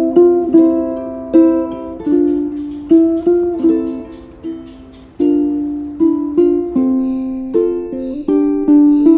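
Background music: a ukulele playing a melody over plucked chords, each note starting sharply and fading, about two or three a second.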